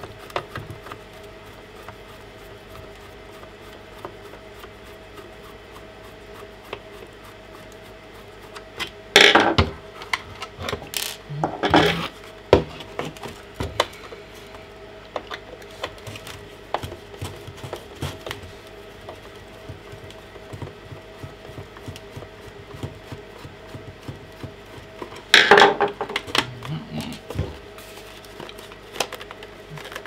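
A small hand screwdriver working out screws from the plastic housing of a Bosch VXAS012V18 handheld vacuum, with small clicks and rubbing as the tool turns and the housing is handled. Three louder knocks and scrapes, about nine seconds in, near twelve seconds and again near twenty-five seconds, as the plastic body is moved against the desk.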